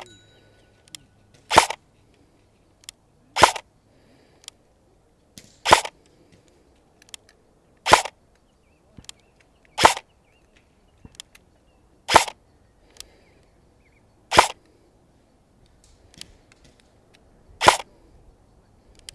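Arcturus AK-12 airsoft electric gun firing eight single shots, each a sharp crack of the gearbox cycling, spaced roughly two seconds apart, with fainter small ticks between them.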